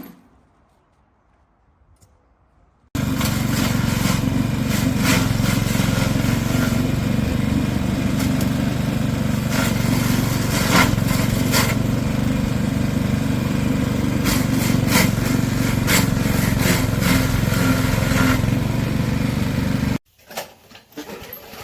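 About three seconds of near silence, then the SuperHandy wood chipper's 7HP engine running loud and steady, with irregular sharp cracks over it. The sound stops abruptly a couple of seconds before the end.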